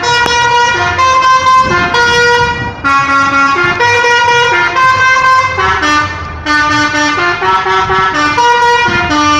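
Bus 'telolet' musical horn playing a tune: a fast run of loud horn notes stepping up and down in pitch, breaking off for a moment about six seconds in, then playing again.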